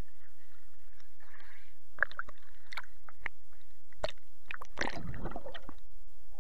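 Water sloshing and gurgling against a waterproof camera housing at the lake surface, with scattered sharp clicks and knocks and a louder splashing, bubbling burst about five seconds in as the camera goes under.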